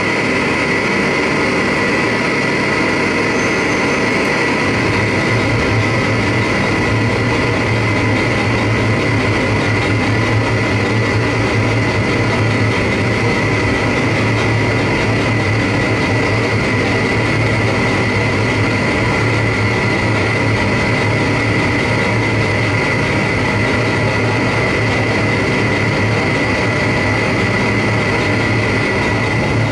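Live harsh noise music: a loud, unbroken wall of electronic noise with a piercing held high tone, over a low drone that swells about four seconds in.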